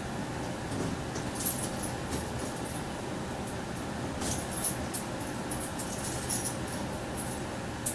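Steady room tone with a faint hum, broken by scattered short, soft high-pitched clicks.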